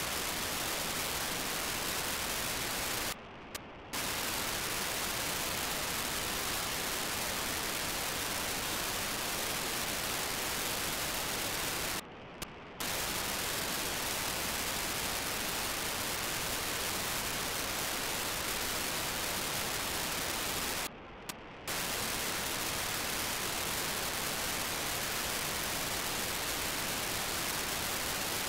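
Steady FM receiver hiss from an RTL-SDR tuned to BlueWalker-3's 437.5 MHz downlink. It is broken three times, about nine seconds apart, by short data bursts from the satellite's 2400-baud FSK telemetry beacon. During each burst, lasting under a second, the hiss drops away and only the lower-pitched data sound remains.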